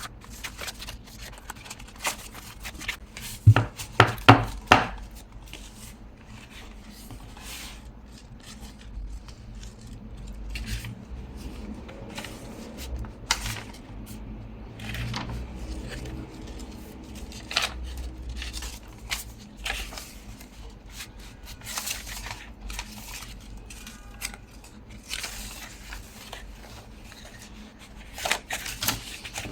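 Scattered taps, clicks and knocks of craft tools and paper being handled on a tabletop while working on journal pages, with a few sharper knocks about four seconds in.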